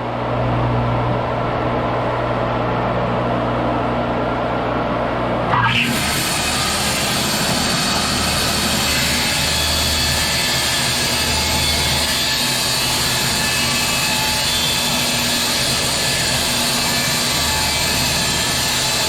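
Bandsaw sawmill running steadily, then about six seconds in its blade starts cutting through a small log and the sound turns to a loud, steady sawing noise.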